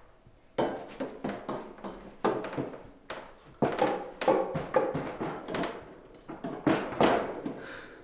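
Wire shelving rack being handled and set down on top of a wine fridge: an irregular run of knocks, clanks and rattles.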